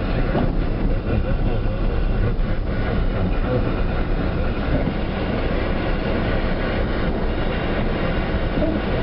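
Loud, steady rumbling noise, heaviest in the low end, with no distinct knocks or tones.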